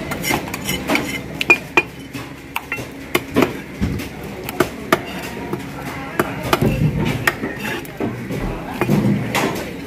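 A heavy curved fish-cutting knife chopping and scraping a fish on a round wooden log chopping block. It makes an irregular run of sharp knocks, a few of them ringing briefly.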